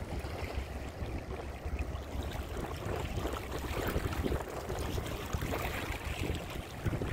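Riverside ambience: wind buffeting the microphone over the wash of the Rhine lapping at the bank, a steady rushing noise with a fluttering low rumble.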